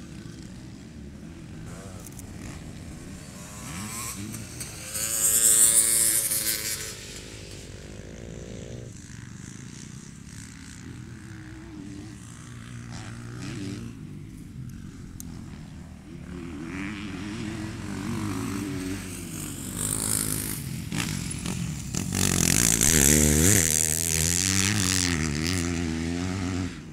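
Motocross dirt bikes revving and accelerating around the track, engine pitch rising and falling with the throttle. The sound is loudest about five seconds in and again over the last few seconds, as bikes come close.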